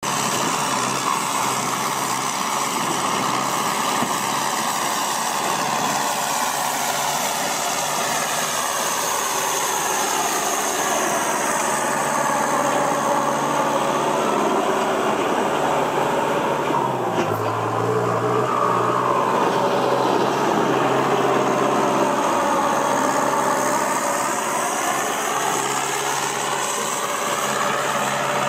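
Kubota M6240SUH tractor's four-cylinder turbo-diesel engine running steadily through an aftermarket exhaust pipe.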